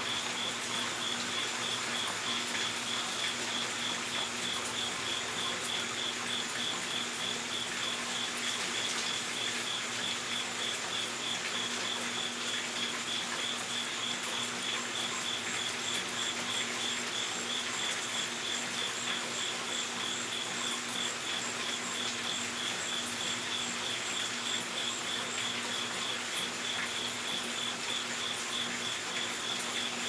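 An insect chirping steadily in a high, rapidly and evenly pulsed tone, over a constant background hiss and a faint low hum.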